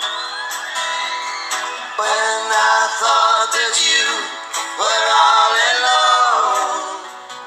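Music: a song with a voice singing long held notes that slide and waver in pitch.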